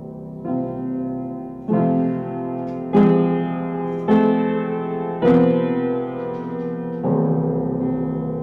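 Improvised piano playing: six slow chords struck at uneven intervals, each left ringing as it fades. The three chords in the middle are the loudest.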